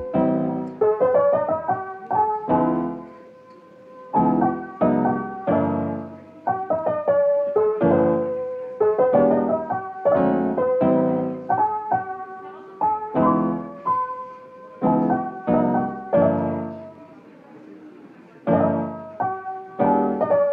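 Background music: a piano playing gentle chords and notes, each struck and left to ring out.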